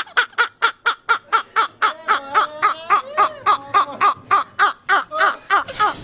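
Two men laughing hard together, in quick repeated bursts of about four a second.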